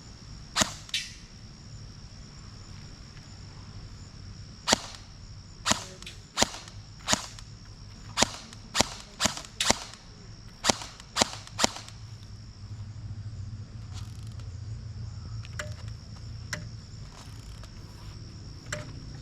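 Valken ASL+ Foxtrot45 airsoft electric rifle firing single shots, about a dozen sharp cracks at uneven intervals over the first twelve seconds, then a few fainter clicks.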